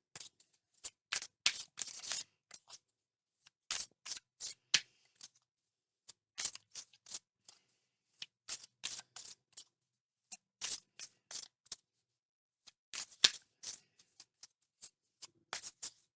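A tarot deck being shuffled by hand, with short bursts of crisp card flicks and snaps about every two seconds.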